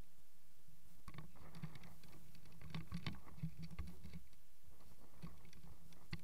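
Irregular small clicks and rustles of a camera being handled and turned by hand, over a steady low hum.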